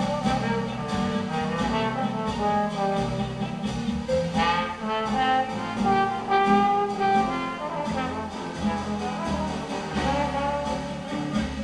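Trombone playing a jazz solo, a run of held and moving notes, over the band's rhythm section.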